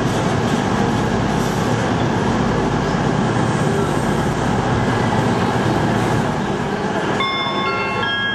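First Great Western High Speed Train moving slowly along the platform, a steady rumble of wheels and running gear on the rails. About seven seconds in, a station announcement chime of several stepped tones begins over the train noise.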